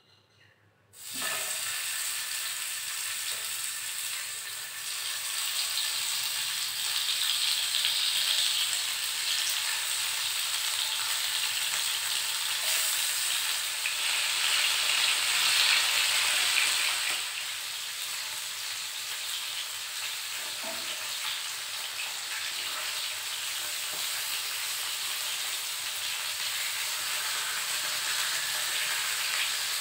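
Tilapia pieces coated in salt and turmeric sizzling in hot oil in a frying pan. The sizzle starts suddenly about a second in as the fish goes into the oil, grows louder twice, then settles into a steady hiss.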